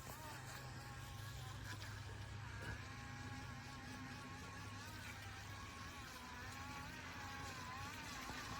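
Faint whine of a DEERC remote-control speedboat's small electric motor running on the water, its pitch wavering up and down.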